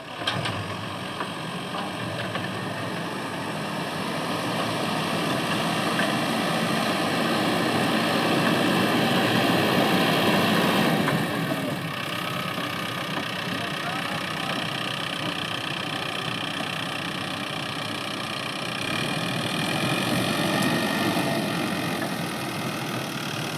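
Mahindra backhoe loader's diesel engine running steadily while digging and loading soil. It grows louder for several seconds, drops back about halfway through, and rises again near the end as the engine takes and sheds load.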